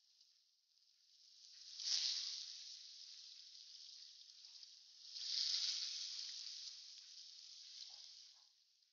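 Cubes of pork fat sizzling in a pan with a little oil as their fat renders out. The sizzle swells twice, about two seconds in and again around five to six seconds in.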